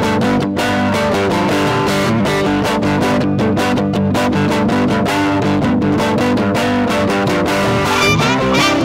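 Guitar playing an instrumental blues with a steady picked rhythm; a harmonica comes in near the end.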